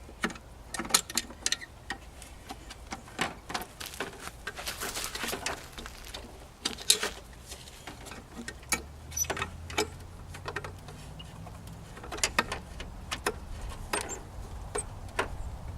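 Irregular clicks and knocks of a vehicle headlight assembly and its parts being handled and pushed into place during installation. A low steady hum comes in about nine seconds in.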